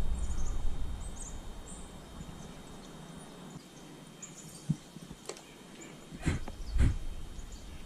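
Outdoor stream-side ambience: low wind rumble at the start and a few short, faint, high chirps, then several sharp knocks and bumps over the last three seconds.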